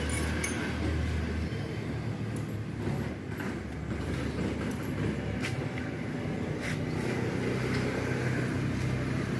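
A motor or engine running steadily with a low hum, with a few light clicks and knocks over it.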